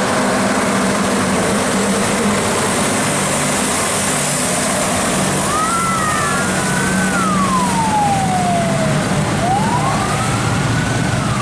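Heavy truck engines running as trucks pass at road speed, with a steady rush of traffic noise. From about five seconds in, a siren wails, its pitch sliding up and down in slow sweeps, two tones overlapping at first.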